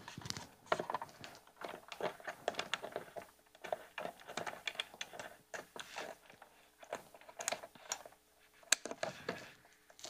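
Handling noise from a PTZ camera as a thread adapter is fitted to its base for tripod mounting: a run of irregular small clicks, taps and knocks, with one sharper knock near the end.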